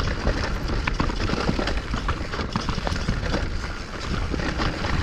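Mountain bike riding over rocky singletrack: a dense, irregular clatter of tyres, chain and frame knocking over rocks.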